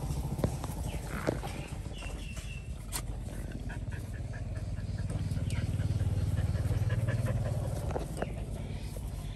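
Motorcycle engine running with a steady low drone that swells for a few seconds in the middle, with a few clicks and short high chirps over it.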